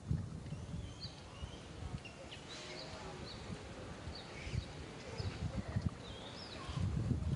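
Scattered short, high-pitched animal chirps over a low rumble of outdoor noise that grows louder near the end.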